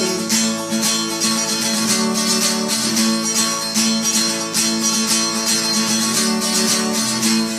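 Acoustic guitar strummed steadily in a rhythmic instrumental break between sung lines.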